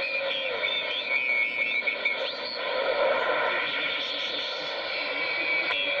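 A President Jackson transceiver's receiver hiss on the sideband mode, laced with steady heterodyne whistles and tones that slide up and down in pitch as the tuning knob is turned across signals.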